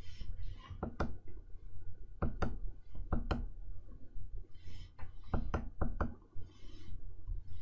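Stylus tapping and scratching on the screen of an XP-Pen Artist 15.6 Pro pen display. Sharp taps, several in quick pairs, fall between short hissy pen strokes.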